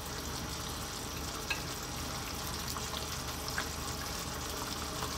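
Tomato sauce sizzling and bubbling steadily in a frying pan over the stove's flame, with two faint taps as fresh sardines are laid into it.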